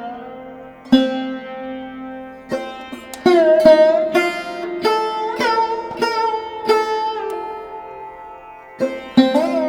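Background music: a plucked string instrument playing a melody of single notes, many bent in pitch after they are plucked.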